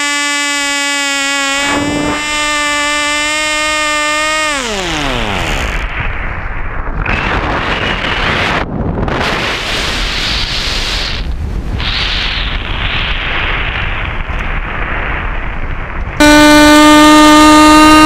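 The sailplane's pylon-mounted motor and propeller buzz steadily, then spin down with a falling pitch about five seconds in as the power is cut. The model then glides with only wind rushing over the onboard microphone, swelling and dropping. Near the end a motor buzz starts again abruptly, much louder.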